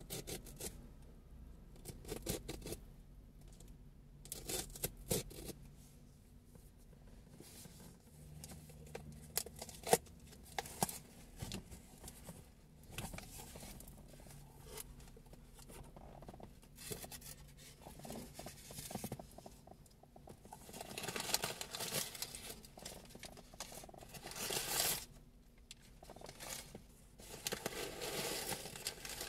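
Snips cutting through the tape and cardboard of a shipping box in a run of short sharp clicks, then cardboard flaps, a paper sheet and packing material rustling and scraping as hands open the box, denser near the end.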